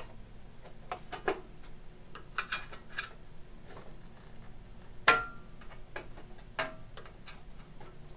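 Scattered light metallic clicks and taps as a small screwdriver pries at the sheet-metal cover of a small engine, working it into place. A sharper clank about five seconds in rings briefly, and another follows about a second and a half later.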